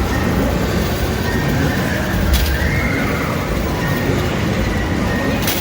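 Busy arcade din: a steady wash of machine and crowd noise with game sound effects, including a short wavering electronic tone a little over two seconds in. Two sharp clinks come about two seconds in and again near the end.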